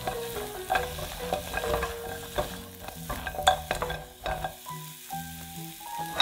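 Potato sticks sizzling in garlic-butter sauce in a nonstick frying pan, stirred and tossed with a silicone spatula: irregular clacks and scrapes over the sizzle. The stirring and sizzle stop about four and a half seconds in, leaving soft piano music.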